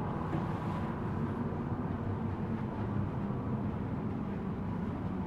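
Steady low rumble of a ferry's engines and onboard machinery, heard inside a passenger cabin.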